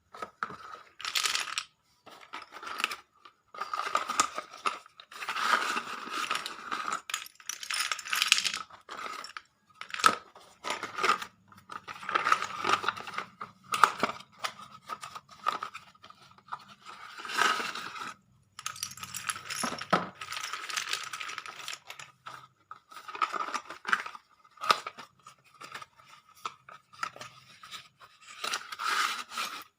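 Slate pencils and their plastic packaging being handled: crinkling, tearing and the light clinking of the sticks against each other, in short irregular bursts with brief pauses.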